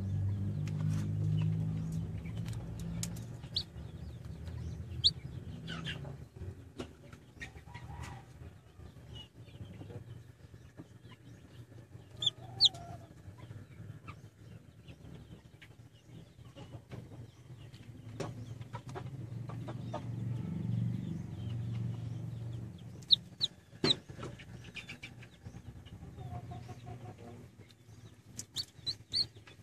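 Hatching chicks peeping in a few short, high cheeps, with scattered sharp clicks and taps, over a low hum.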